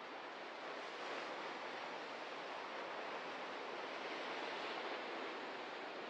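Ocean surf washing on the shore: a steady rush of waves that swells a little about a second in.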